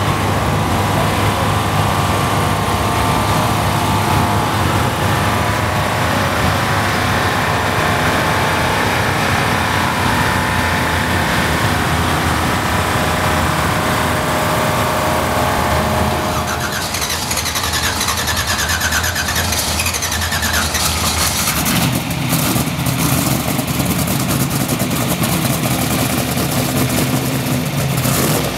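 Alcohol-injected twin-turbo V8 of a Pro Mod drag car, fed by twin 88 mm turbochargers, running at a steady idle during warm-up. A little past halfway the sound changes: for a few seconds a higher whistle rises and falls over the engine, then it settles into a deeper, lumpier idle.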